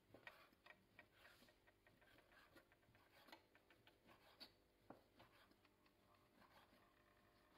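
Kitchen knife cutting raw bacon on a wooden cutting board: faint, irregular taps of the blade against the board.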